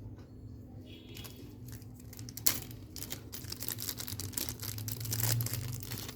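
Packaging bag being handled and opened, crinkling and rustling densely from about halfway through, with one sharp click about two and a half seconds in. A steady low hum runs underneath.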